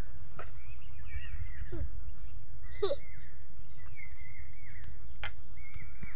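Outdoor rural ambience: a steady low rumble with faint, scattered bird chirps over it.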